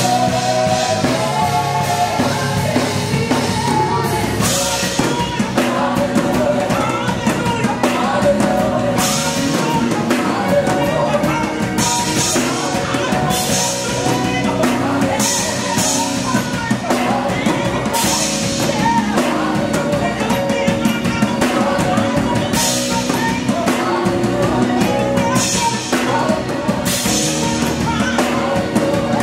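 Live gospel music: a male lead singer belting into a microphone with backing singers, over a band with drums and cymbals.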